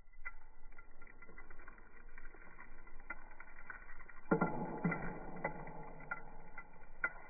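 Dirt, lint and small crunchy debris dropped by hand onto a carpet: scattered ticks of bits landing, then a louder pour of dirt pattering down from about four seconds in. A faint steady whine runs underneath.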